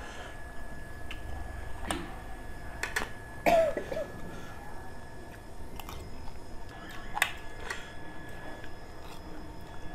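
Someone eating: a spoon and fork clink and scrape against plates now and then, with a short cough-like throat sound about three and a half seconds in. A faint steady high tone runs underneath.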